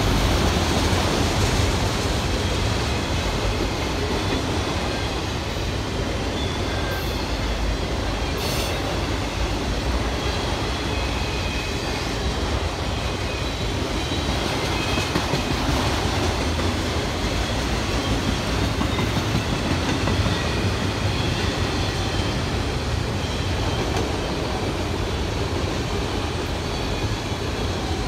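Freight train's autorack cars rolling past close by: a steady rumble and rattle of steel wheels on the rails.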